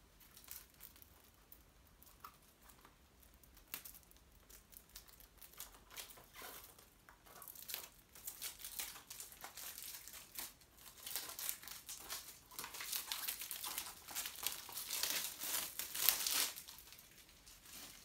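Plastic shrink wrap being torn and peeled off a Blu-ray case, crinkling in irregular fits that grow busier and denser over the second half and stop suddenly near the end.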